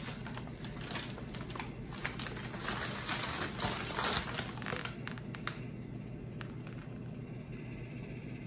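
Paper takeout bags rustling and crinkling as they are handled and lifted, densest about three to four seconds in and dying away after about five seconds. A steady refrigerator hum runs underneath.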